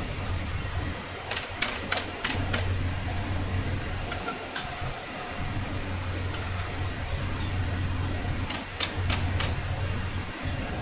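Steel slotted skimmer clinking and tapping against an aluminium kadhai and a steel lid as fried peanuts are scooped out and tipped off, in three quick clusters of sharp clicks over a steady low hum.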